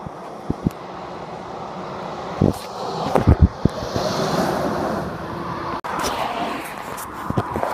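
Traffic noise from a dual carriageway, swelling as a Scania lorry with an empty timber trailer comes up and passes close by, with tyre hiss near the middle. A few low thumps of wind on the microphone come just before it passes, and the sound breaks off briefly about six seconds in.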